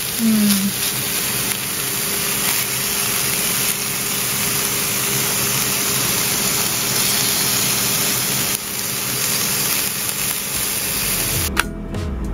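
Fish fillets sizzling on a hot griddle, a steady frying hiss. Near the end it cuts off suddenly and music with a beat comes in.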